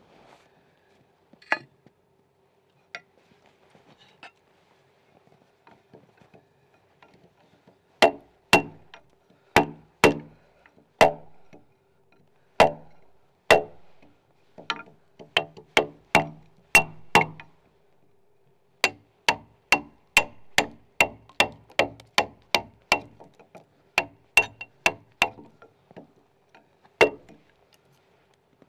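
Wood chisel being driven into a log with blows from the back of an axe, cutting the cog of a Scandinavian saddle-notch corner joint: sharp knocks with a metallic clink. A few scattered strikes at first, then steady blows about two a second from about eight seconds in, with a short pause partway.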